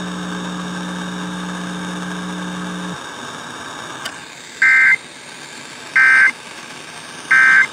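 Emergency Alert System end-of-message code: three identical short bursts of warbling two-tone data, about 1.4 s apart, closing a statewide Required Monthly Test. A steady low hum runs for the first three seconds before it, then cuts off.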